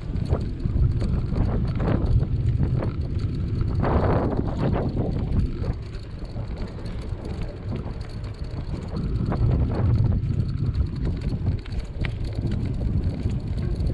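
Wind buffeting the microphone of a moving bicycle, a low rumble that swells and eases in gusts, over the noise of the tyres rolling on asphalt.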